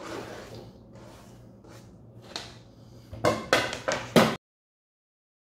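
Chopped onion scraped off a plastic cutting board into a bowl, then four sharp knocks in about a second as the board is tapped and set down on the counter. The sound then cuts off suddenly.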